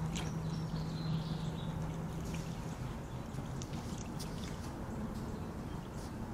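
White-tailed deer wading in a shallow creek, its hooves splashing and dripping in the water in short sharp strokes, mostly in the second half, over the creek's steady trickle. A low steady hum runs through the first half.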